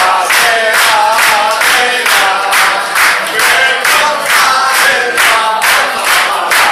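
A crowd singing together and clapping hands in time, about three claps a second.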